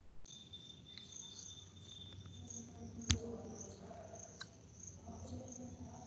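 Faint background with a thin steady high whine, a pulsing high-pitched chirping, one sharp click about three seconds in and a lighter click about a second later.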